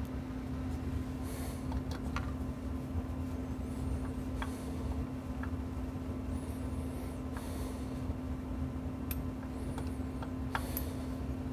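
Steady low background hum with one constant tone, under sparse light clicks of a screwdriver and metal hardware being worked among the wiring inside an open amplifier chassis.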